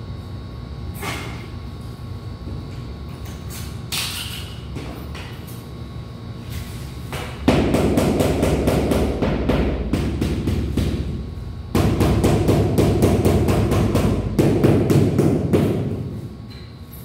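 Hands rummaging in a plastic bag of tile-leveling clips: a rustling, clattering crackle of plastic on plastic that comes in two long loud spells from about halfway through. Before that, a low steady rumble with a couple of knocks.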